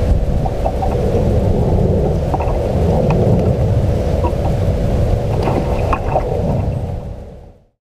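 Wind buffeting the microphone in a steady low rumble, with a faint steady hum and a few light clicks; it fades out near the end.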